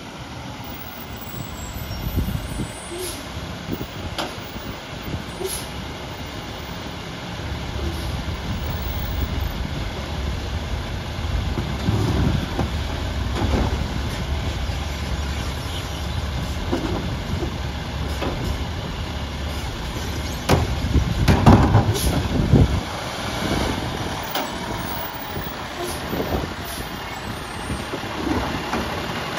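Peterbilt garbage truck with a New Way Sidewinder side-loader body pulling up to the curb, its diesel engine running with a steady low rumble that grows louder about a quarter of the way in. There is a louder burst about two-thirds through, likely the air brakes hissing as the truck stops.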